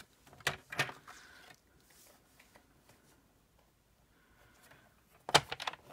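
Paper and card handled on a worktable: a couple of light taps and rustles within the first second, then a quiet stretch, then a quick cluster of louder crackling rustles near the end.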